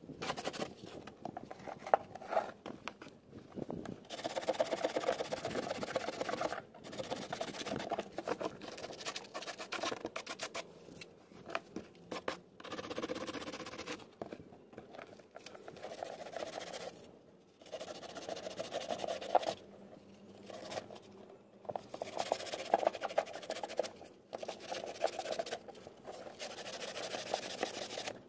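Coarse sandpaper, rolled into a tube, rubbing back and forth along the rough edge of a cured fibreglass fairing. The scraping comes in runs of quick strokes broken by short pauses.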